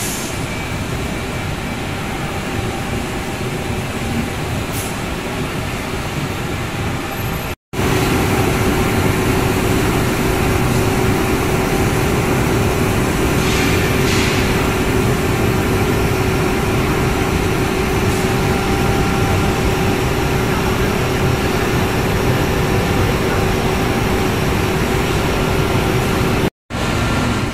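An automatic glass double-edge grinding line running: a steady din of motors and roller conveyors. The sound cuts out briefly twice. After the first break, about eight seconds in, it is louder and carries a steady hum.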